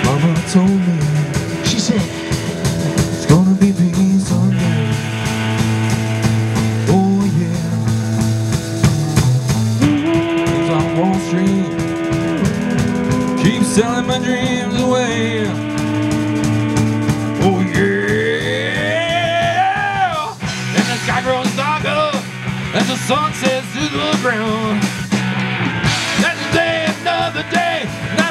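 Live rock band playing: electric guitars, bass guitar and drum kit. About two-thirds of the way through, a guitar note glides steadily upward.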